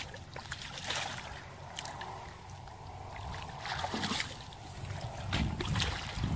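Water sloshing, with a few brief splashes over a low rumble.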